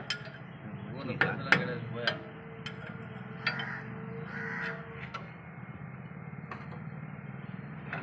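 Scattered metal knocks and taps from work on a round straw baler's crown gearbox while a bearing is being removed, about half a dozen at an uneven pace, over a steady low hum.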